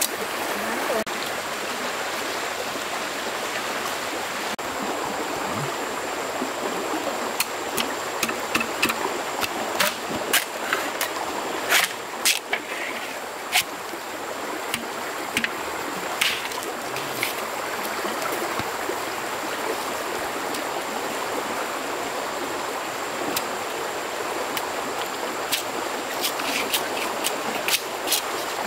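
Water running in a stream, a steady rushing, with scattered sharp clicks and knocks, more of them through the middle and again near the end.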